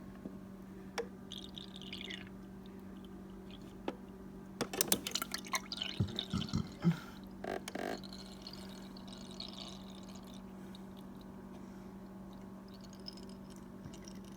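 Water pouring and dripping into a cup, with a run of clattering knocks near the middle as things are handled, over a steady low hum.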